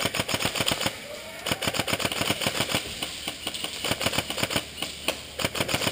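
Airsoft electric guns firing full-auto: rapid, evenly spaced clicking shots at roughly a dozen or more a second, in a short burst, then after half a second longer strings that run almost continuously until thinning out near the end.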